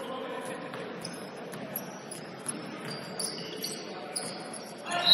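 Basketball game play on a court: sneakers squeaking in short high chirps and the ball bouncing, with a loud, shrill whistle blast starting right at the end.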